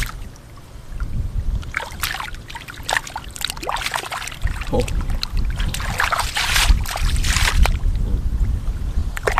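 Shallow field water splashing and sloshing in short, repeated bursts as hands work through it for fish, over a steady low rumble.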